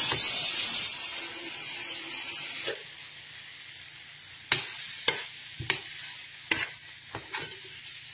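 Sizzling in a stainless steel pan of onion, tomato and spice masala, loud at first after a little water is added to the hot oil, then dying down over the first three seconds. After that a perforated steel spoon stirs the masala with a low sizzle underneath, giving sharp clinks against the pan every second or so.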